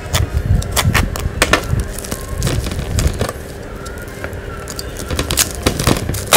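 Plastic parcel wrapping crackling and crinkling as it is handled and slit open with a snap-off utility knife, in irregular sharp crackles with a few dull handling knocks.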